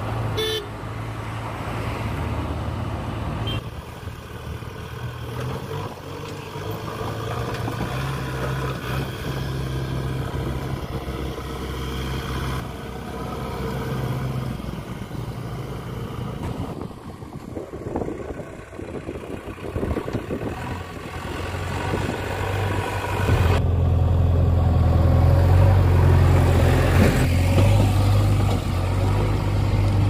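JCB 3DX backhoe loader's diesel engine running as the machine drives along the road, a steady low drone that is louder in the last few seconds.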